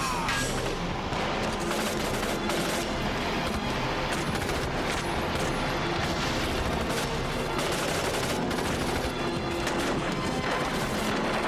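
War-film battle soundtrack: rapid, continuous automatic rifle fire, many shots overlapping, with a music score underneath.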